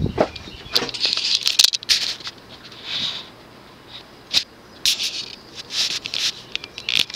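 Emerson Cornerstone ceiling fan with its K55XL motor running on high, with a slight uneven blade buzz that comes and goes in short rattly bursts. The owner thinks it is from missing grommets or felt washers between the blade screws and the blades.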